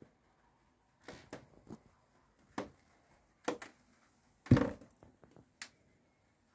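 A handful of short knocks and bumps at uneven intervals, the loudest and deepest thump about two-thirds through.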